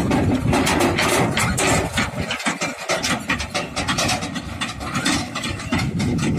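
Sonalika DI 47 tractor's diesel engine running as it pulls a trailer away.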